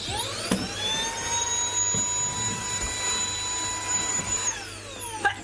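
Vacuum cleaner switched on: its motor whine rises in pitch as it spins up, runs steadily for about four seconds, then falls away as it is switched off near the end.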